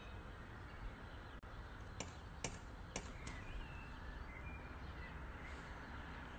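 A cat rapping a metal door knocker on a front door: four quick, light knocks a little over a second long, starting about two seconds in.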